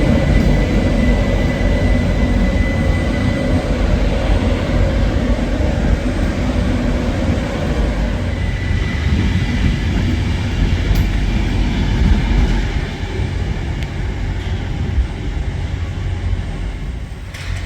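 Class 91 electric InterCity 225 train pulling out of the station: a loud low rumble with a thin high whine over the first few seconds, easing off about twelve seconds in as it moves away.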